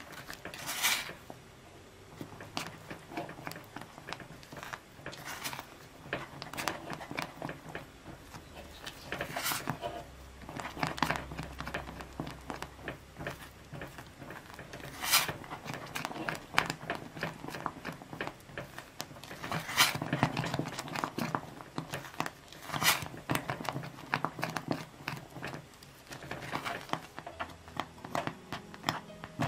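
Silicone spatula stirring and scraping thick lemon custard cream around a stainless steel saucepan over the heat, with irregular sticky slaps and clicks as the cream thickens on the stove.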